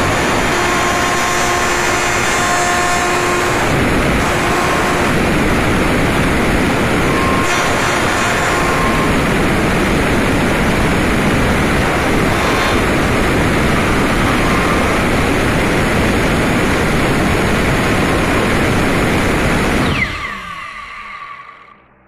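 Power router running at full speed, its bit cutting a round hole in an aluminium panel: a loud, steady, dense whirring noise. About 20 seconds in the router is switched off and its motor winds down with a falling whine.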